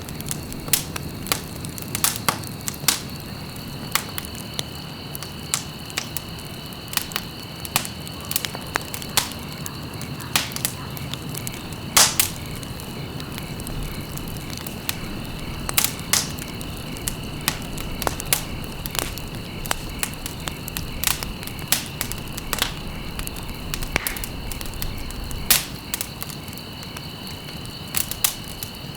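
Wood fire crackling: irregular sharp pops and snaps over a low steady rumble, the loudest pop about twelve seconds in. Two faint steady high tones sit beneath it.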